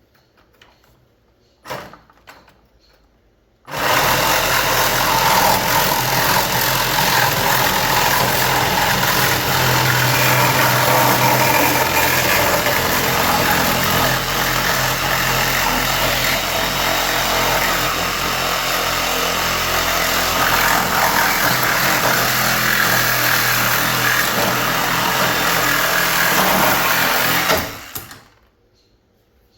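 Handheld electric power tool cutting through metal. It gives a brief burst, then runs steadily for over twenty seconds before stopping.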